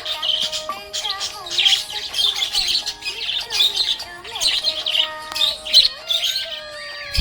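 Budgerigars chirping and warbling in quick, dense bursts of high chirps, a few each second.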